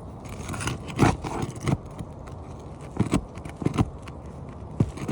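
A hand tool scraping and knocking against asphalt roof shingles and their nails while prying them up, in a few short irregular bursts. The nails are overdriven, and the shingles are being forced loose.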